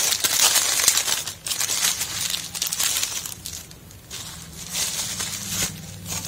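Clear plastic and bubble-wrap packaging crinkling and crackling as hands handle and open it. Loudest for the first two seconds, it quietens in the middle and picks up again briefly near the end.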